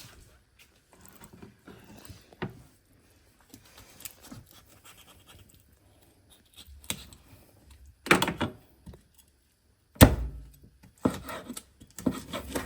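Knife cutting and chopping through a raw whole chicken on a cutting board: scattered scraping with a few sharp thunks, the heaviest blow about ten seconds in and several more near the end.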